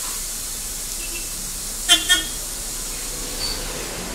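Steady running noise of a city bus, with two quick short toots of a horn about two seconds in.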